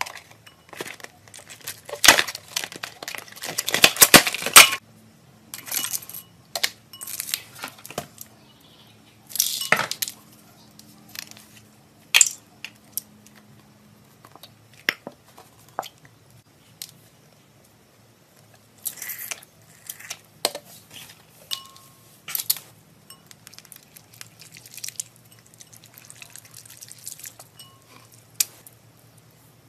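Plastic packaging crinkling and tearing as a slime kit is opened, loudest in the first five seconds. After that come scattered clinks, taps and wet handling sounds as slime is squeezed into a glass bowl and stirred with a wooden stick against the glass.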